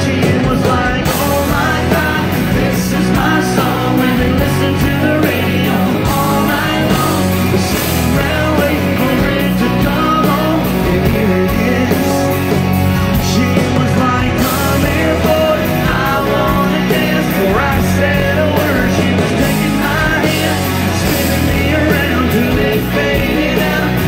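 Live country band playing loud through a concert PA, with a steady drum beat and a sung vocal line.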